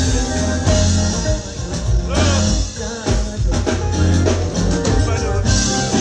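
Loud music over a concert PA system with heavy bass and a drum beat, and a voice singing over it at times.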